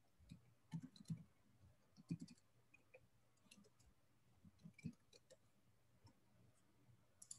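Faint, irregular clicking of a computer keyboard being typed on, about two or three keystrokes a second.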